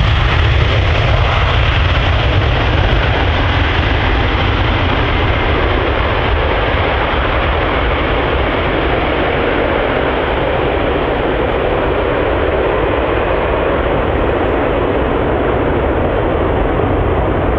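Helicopter flying, a steady rushing rotor and engine noise whose deep rumble weakens after the first few seconds and whose high end slowly dulls as it moves away.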